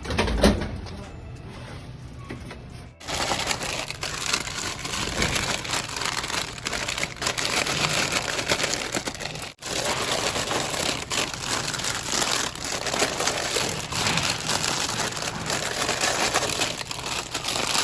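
Dense crinkling and clicking of snack bags being handled while a vending machine's empty slots are restocked, starting after a thump and a quieter few seconds.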